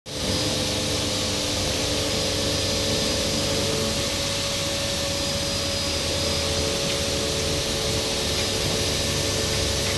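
Steady machine-shop drone from running machinery: a continuous hiss with a low hum and a few steady tones, with no cutting heard.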